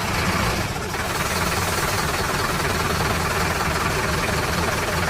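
Heavy vehicle's engine idling steadily.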